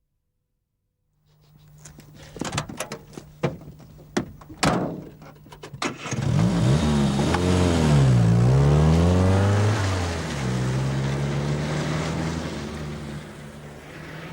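1985 Austin Mini's A-series four-cylinder engine idling, with several sharp clicks and knocks. About six seconds in it is revved hard, drops and rises again, then settles back to a steady idle.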